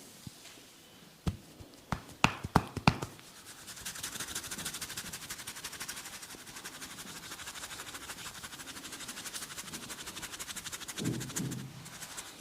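A barber's hands at work in a head massage: about six sharp snaps, then a fast, even scratching patter that lasts about eight seconds.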